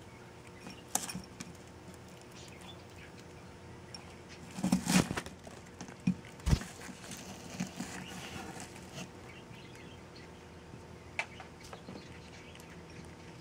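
Scattered light taps of a ring-necked dove pecking egg mash from a small glass bowl, and the bowl being handled in a cardboard box strewn with seed: a flurry of rustling and knocks about five seconds in, then a sharp knock soon after.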